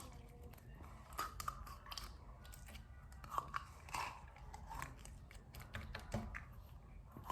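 Blue slime being squished and stretched by hand, making faint, irregular small clicks, pops and crackles.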